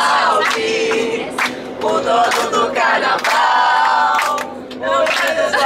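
A group of people singing together in chorus, with hand clapping along.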